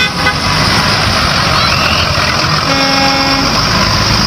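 School bus engine running loudly with a steady rumble. Its horn toots briefly at the very start and again for most of a second about two and a half seconds in.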